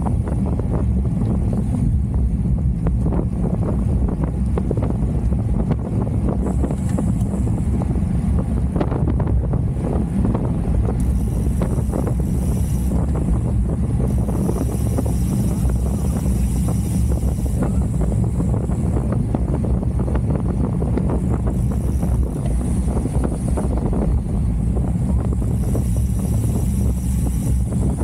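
Wind rushing over the microphone of a road bike riding at speed: a steady low rumble. A faint higher hiss rises twice, in the middle and near the end.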